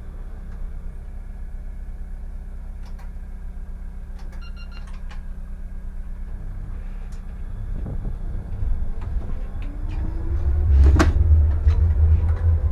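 Solaris Tramino S105p tram running on rails, heard from the driver's cab: a steady low rumble, with a short electronic beep about a third of the way in. In the second half the rumble grows louder and the traction motors give a rising whine as the tram picks up speed, with one sharp knock near the end.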